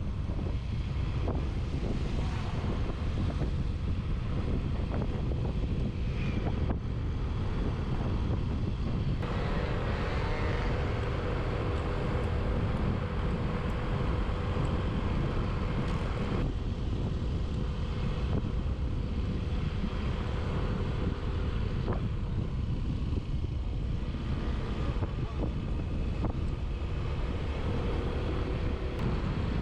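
A moving vehicle: a steady low rumble of road and wind noise, with an engine hum rising above it for several seconds about a third of the way in.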